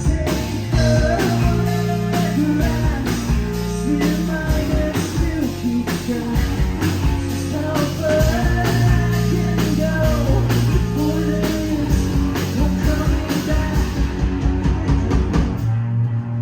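Live heavy rock band playing: distorted guitars, bass and a fast pounding drum kit, with a singer's voice over them.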